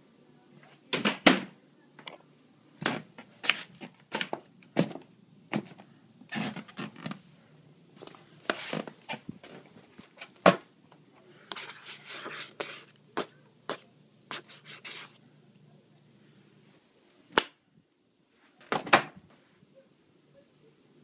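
Irregular knocks, bumps and rustling of things being handled and moved about in a room, a few of them sharp and loud, over a low steady hum that stops about 17 seconds in.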